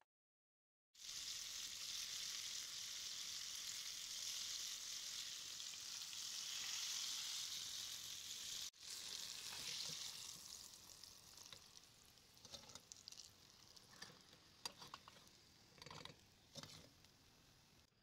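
Breaded fish pieces deep-frying in hot oil in a pan, a steady sizzle that begins about a second in. After a brief break past the middle the sizzle goes on quieter, with scattered clinks and scrapes of a slotted metal spoon turning the pieces.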